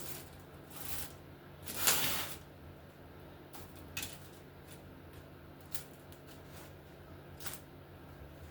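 Light clicks and knocks of biscotti slices being stood upright on a baking tray, with one louder scrape about two seconds in, over a low steady hum.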